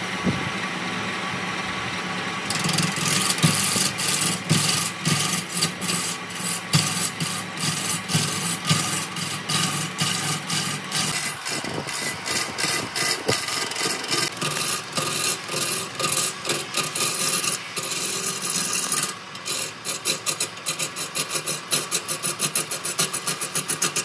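A motor-driven power tool working wood. It runs steadily for the first couple of seconds, then rasps in rapid, uneven strokes as it bites into the wood.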